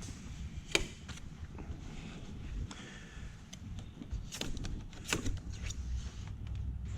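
A few sharp clicks and knocks over a low, steady rumble: handling noise. The loudest knock is about three-quarters of a second in, with a cluster around four and a half to five seconds in.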